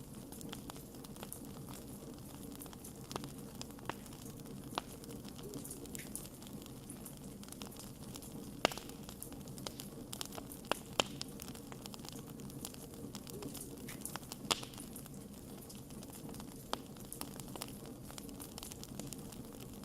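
Wood fire burning in a fireplace: a steady low rush of flame with scattered sharp crackles and pops from the logs, a few of them louder, in the middle stretch.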